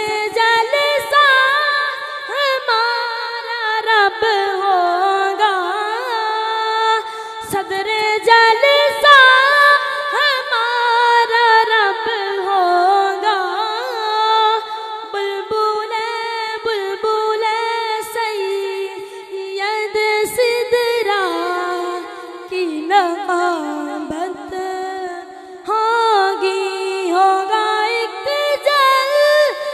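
A boy singing a naat (Urdu devotional poem in praise of the Prophet) unaccompanied, in a high voice. He sings long, winding, ornamented phrases with brief breaths between them.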